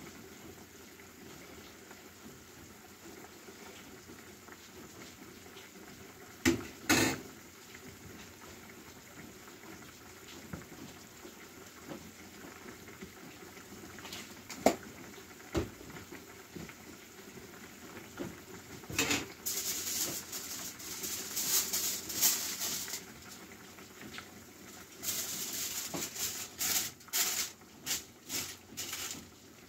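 Chicken-and-vegetable stew simmering in a frying pan on a gas burner, a faint steady bubbling, broken by a few sharp knocks in the first half. In the second half aluminium foil crinkles in repeated bursts as it is laid and pressed down over the pan.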